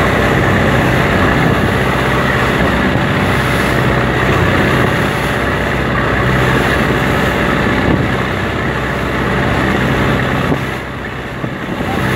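Fishing boat engine running steadily under way, under the rush and splash of the hull cutting through choppy waves, with wind on the microphone. The noise eases briefly near the end, then picks up again.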